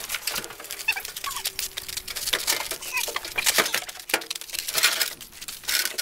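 Irregular scuffing, knocking and scraping as a full-size front-loading washing machine is rocked and turned around by hand on the ground.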